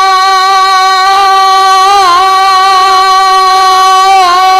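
A man singing a naat unaccompanied, holding one long drawn-out note with two brief vocal turns in the middle, through a microphone and PA.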